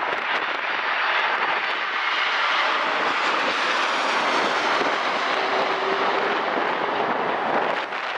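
Landing airliner passing close on its approach, its engine noise a steady, loud rush with a faint high whine above it.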